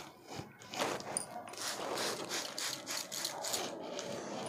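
Irregular rustling and rubbing strokes of long hair being handled and pulled through the fingers close to the microphone.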